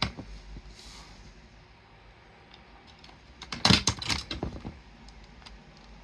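Hard plastic clicks and clatter from a Toshiba RT-CS1 stereo radio cassette player being handled and its controls worked. There is one sharp click at the start, then a quick run of several loud clicks and rattles about three and a half seconds in.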